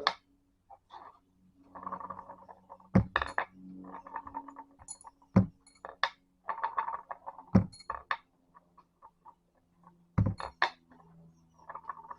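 Steel engine pushrods being rolled one at a time across a flat surface to check for bends: short rattling rolls a couple of seconds apart, with about five sharp metallic clinks as rods are picked up and set down.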